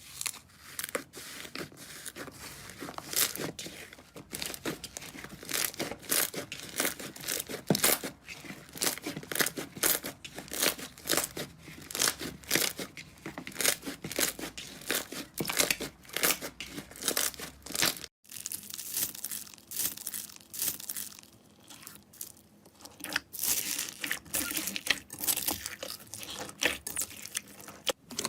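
Slime being worked by hand, a dense run of crackles and pops, with a brief gap about two-thirds of the way through.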